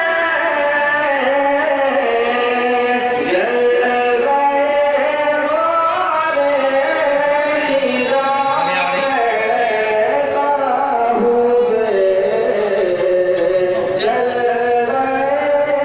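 A man's solo voice singing a naat into a microphone, in long held melodic lines that slide slowly up and down in pitch.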